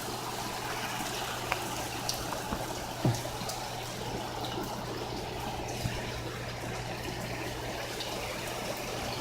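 Heavy rain pouring down in a steady hiss, with a few sharper drops or taps standing out now and then and a steady low hum underneath.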